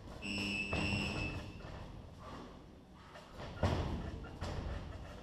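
Boxing gloves landing punches in sparring: scattered thuds, the loudest about three and a half seconds in. Near the start a steady high-pitched beep sounds for about a second and a half.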